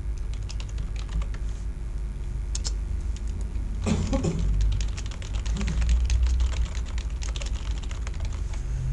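Computer keyboard typing: fast, irregular keystrokes, scattered at first and then a dense run from about halfway through, over a steady low hum.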